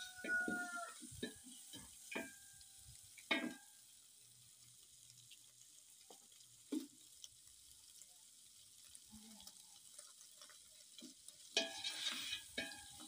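Wooden spoon stirring pilau in a large metal cooking pot, with scrapes and knocks of the spoon against the pot, the loudest about three seconds in and a cluster near the end, while the food in the pot sizzles. A rooster's crow trails off about a second in.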